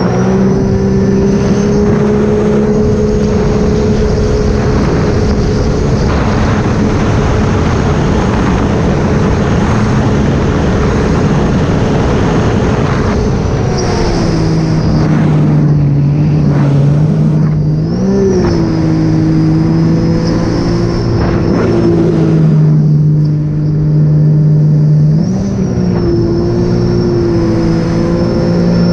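Supercharged three-cylinder Rotax engine of a Sea-Doo RXP-X 300 jet ski running under way, with water and wind rushing past. The engine note holds steady for about the first half, drops to a lower steady pitch about halfway through, then briefly rises twice.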